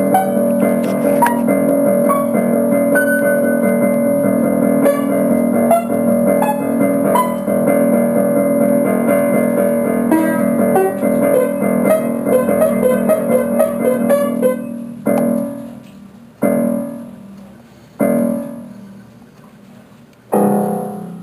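Piano music with a run of quick notes over held chords. In the last few seconds it turns to four separate chords, each struck and left to die away.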